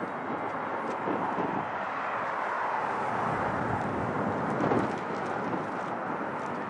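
Distant aircraft noise: a steady rushing that swells towards the middle, with a brief louder bump about two-thirds of the way through.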